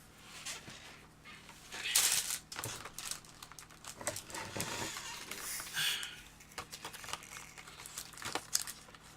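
Packaging being handled and crinkled: irregular rustling and crackling, loudest about two seconds in and again between four and six seconds.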